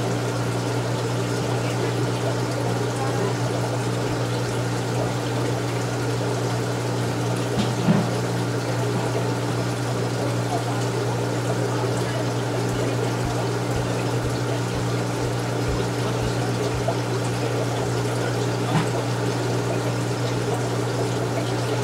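Aquarium filter pump running steadily: a constant low hum with water trickling and splashing over it, and two brief knocks.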